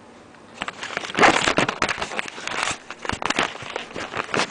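Hard plastic clicking, scraping and rattling of a Beyblade top and its launcher being handled and fitted together, a dense run of clicks that starts about half a second in.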